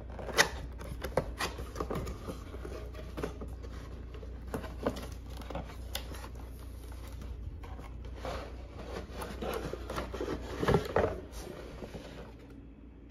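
A cardboard product box being handled and opened by hand: a few sharp taps and knocks, then louder scraping and rustling as the lid flaps are pulled open, loudest near the end.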